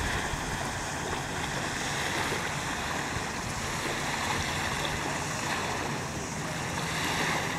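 Steady wash of wind and small waves lapping at the shoreline.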